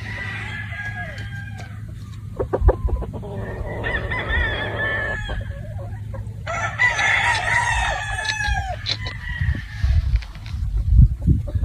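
Gamefowl roosters crowing: three long crows in turn, each about two seconds, with clucking and a few sharp taps between them.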